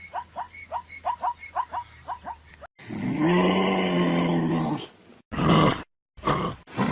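An animal's rapid series of short yipping calls, about four a second, each sweeping down in pitch; about two and a half seconds in it cuts to a different animal's loud, low, drawn-out groaning call, followed by shorter grunting calls.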